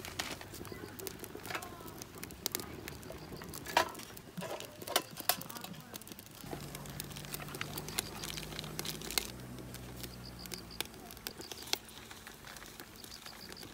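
Wood fire crackling in a stainless-steel camping rocket stove under a wok, with scattered sharp pops and clicks. A low steady hum comes in about six seconds in and fades out near eleven seconds.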